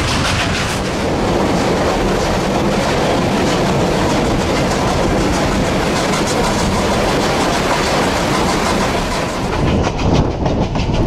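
Durango & Silverton narrow-gauge steam train on the move: a steady, loud rumble and rattle of the running train with a faint regular beat. Near the end the high rushing noise drops away and sharper, uneven knocks take over.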